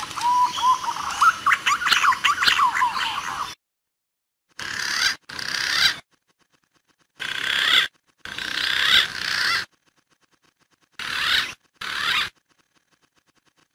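Green pigeon (punai) lure recording: quick whistled calls that slide up and down in pitch. A long run of calls is followed by six short bursts, with dead silent gaps between them as in an edited, looped track.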